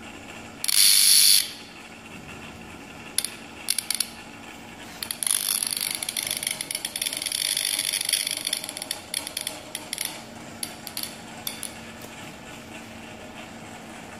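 Energised Biccotest T122 30 kV AC high-voltage test set: a short loud hissing burst about a second in, then scattered sharp clicks, and from about five to nine seconds dense, rapid, irregular crackling, over a faint steady hum.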